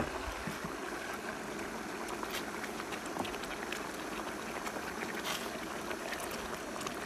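Pickled-cabbage fish soup simmering at the boil in an electric wok, a steady bubbling hiss, with a silicone spatula stirring through it and a few faint ticks against the pan.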